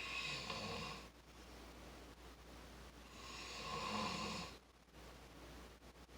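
A person snoring: two long snores about three seconds apart, the first right at the start and the second about three seconds in.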